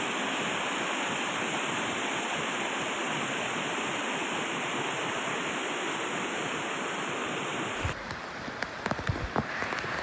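Steady rush of fast-flowing floodwater. About eight seconds in, the footage cuts to rain falling, with scattered sharp knocks and splashes.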